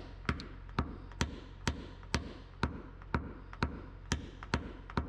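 Paintless dent repair knockdown tool being tapped against a car body panel, a steady run of light, sharp taps about two a second, knocking down the high spots of a dent.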